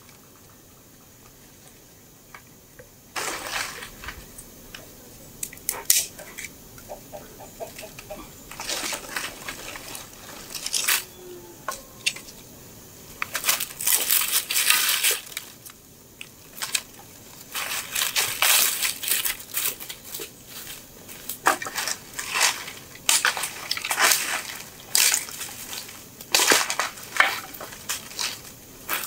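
Dry branches of firewood being snapped by hand and dropped onto a pile of sticks: a run of sharp, irregular cracks and wooden clatters that begins about three seconds in.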